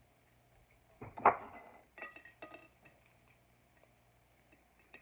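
A short clatter about a second in, then a few light clinks: sunflower seeds and a dish being handled while the seeds are scooped up and pressed into peanut butter.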